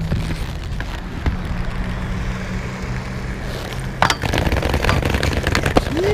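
Inline skate wheels rolling on asphalt, then a sharp knock about four seconds in as the skates land on a low metal rail for a grind, followed by a few clacks as the skater comes off and rolls away.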